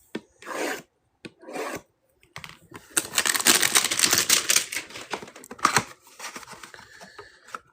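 Trading-card box packaging being opened by hand: a few short soft rustles, then a run of rapid crackling and ticking, loudest about three to four and a half seconds in.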